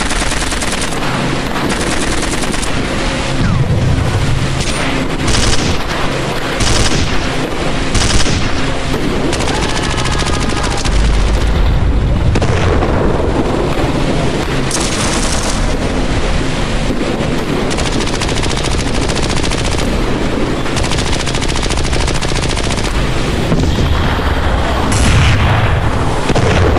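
Battle sound effects: continuous machine-gun and rifle fire with repeated sharp shot bursts and low booms, a deep rumble about halfway through.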